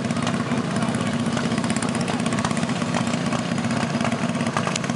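Several racing lawn mowers' small engines running steadily together on the start line, a dense buzzing drone.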